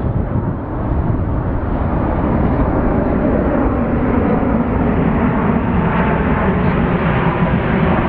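Jet airliner flying low overhead: a steady rushing rumble of its engines that grows louder.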